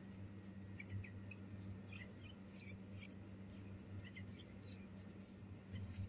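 Bulbul nestlings giving faint, short, high squeaky peeps, scattered irregularly, over a steady low hum.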